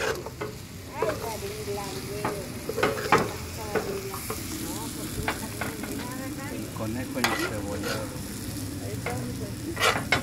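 Metal spoon scraping and clanking against a round steel griddle pan, over the steady sizzle of rabbit meat and onions frying on it, as the food is stirred and turned several times.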